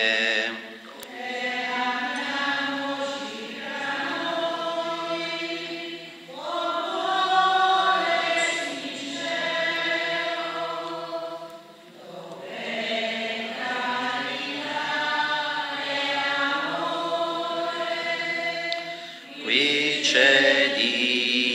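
Voices singing a communion hymn in long phrases of about six seconds each, with short breaths between them.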